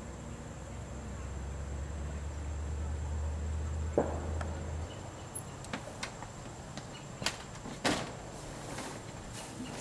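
A low steady hum that cuts off about five seconds in, and a thump about four seconds in. Then come several sharp knocks and clicks of a house door being handled, the loudest two close together near the end.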